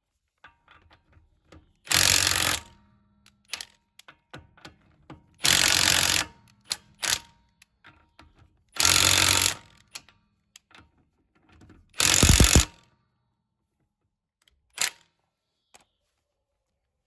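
Milwaukee 2861 M18 Fuel half-inch impact wrench run in four short trigger pulls, each under a second, with its hammer mechanism rattling. Small clicks and handling knocks fall between the pulls.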